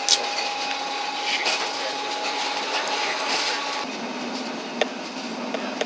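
Running noise heard on board a Blackpool heritage electric tram: a steady rumble with a steady whine that stops about four seconds in, and a sharp click near the start and another near the end.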